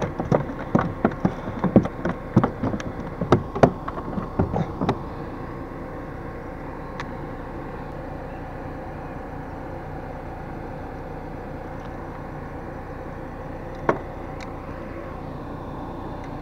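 Quick clicks and knocks of gear being handled on a plastic fishing kayak's deck for about five seconds, then a steady low background hum with one sharp click near the end.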